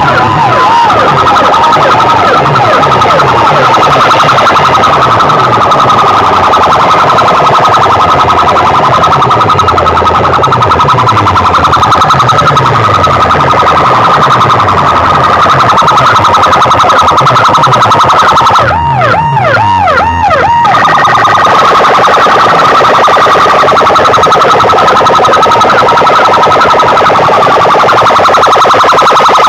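Massed horn loudspeakers blasting a loud, steady electronic siren-like tone, with a pulsing low beat underneath. About two-thirds of the way through, a quick warbling chirp repeats for a couple of seconds.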